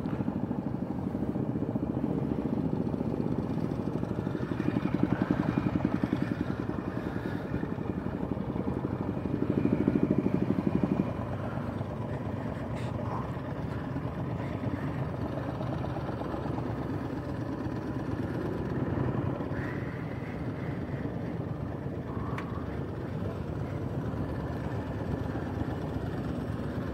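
Motorcycle engines running at low speed, with the rider's own Triumph America parallel twin close to the helmet microphone and other bikes around it. The engine sound swells twice in the first half and drops back at about 11 seconds to a steadier, quieter running.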